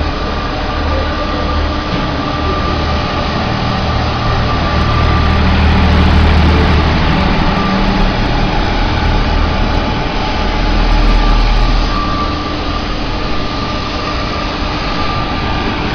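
Shrink-wrap packaging machine for bottled water running: a steady mechanical hum with a constant whine, its low rumble swelling in the middle and again a little later.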